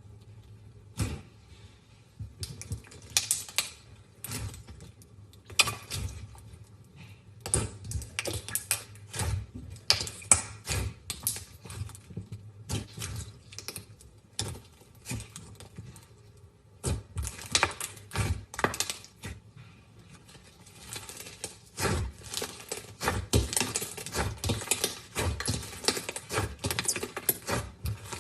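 Slime being squeezed and poked by hand, giving many crisp clicks and crackling pops in irregular runs, with short lulls between them.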